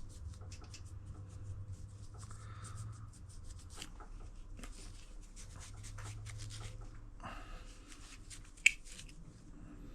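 Rag scrubbing paint overspray and dirt off a part with petrol, in short irregular scratchy strokes, with one sharp click near the end.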